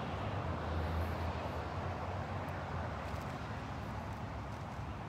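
Steady outdoor background noise: a low, even rumble with a soft hiss over it and no distinct event.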